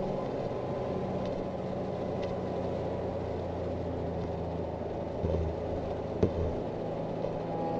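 Infiniti G35's exhaust, a custom 3-inch straight pipe with no catalytic converters and only a Magnaflow muffler, droning steadily inside the cabin at highway cruise, over tyre hiss from the wet road. A single sharp click comes about six seconds in.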